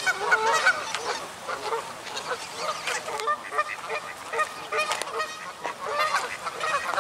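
A group of geese honking, with many short overlapping calls, as they crowd around expecting to be fed bread.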